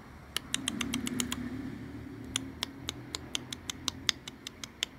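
A person's mouth clicks imitating a house gecko's chirping call: a quick run of about seven sharp clicks, a short pause, then a longer run of evenly spaced clicks at about five a second.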